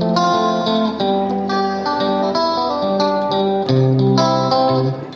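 Background music played on a plucked guitar, with notes and chords changing in a steady pattern.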